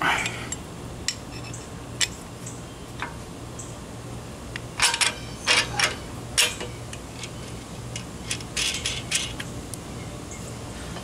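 Metal boomerang shackle plates being pivoted by hand on the frame hanger and spring-eye bolt: scattered light clicks, with two clusters of sharper metal clinks and clacks, one about five to six seconds in and one near nine seconds.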